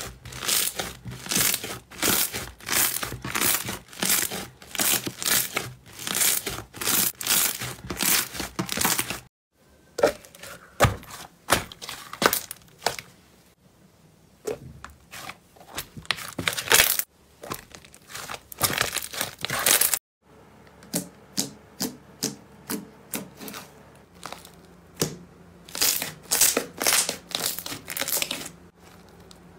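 Hands kneading and squeezing slime, giving rapid wet crackling and popping clicks. After about nine seconds the clicks thin out to sparse single pops. Near the end the dense crackling returns as a white fluffy slime is pressed.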